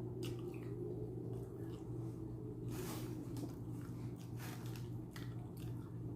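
A person chewing and biting into a chicken shawarma wrap with fresh vegetables, heard close, with scattered short clicks of mouth and food noise over a steady low hum.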